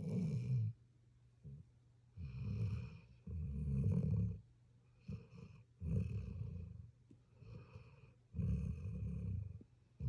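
A sleeping puppy snoring, a raspy snore with each breath, about one every two seconds.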